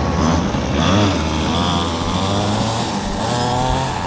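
Small gas engine on a child's ride-on vehicle running steadily at low revs, its pitch wavering briefly about a second in and again near the end.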